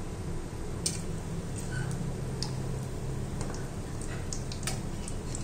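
Chhena balls deep-frying slowly in oil on a low flame: a steady sizzle scattered with sharp little pops and crackles, over a low steady hum.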